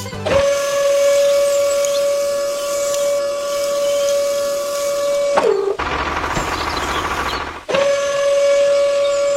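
A steady high-pitched tone held for about five seconds. It slides down in pitch as it stops, gives way to about two seconds of hissing noise with a low hum, then starts again at the same pitch.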